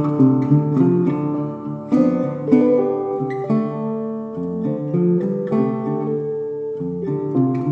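Background music: plucked acoustic guitar playing a tune, with a fresh note every fraction of a second.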